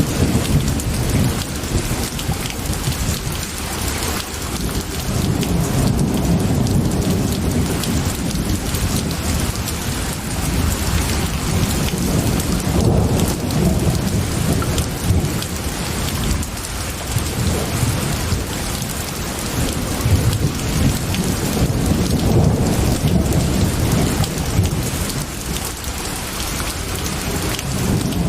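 Steady heavy rain falling on a surface, with a continuous low rumble underneath that swells and fades every few seconds.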